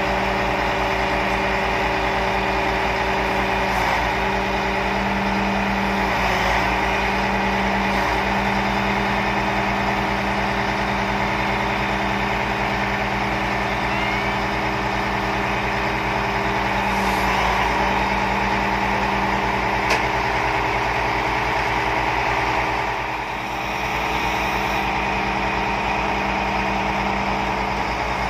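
KATO truck crane's diesel engine running steadily close by, a constant, even drone.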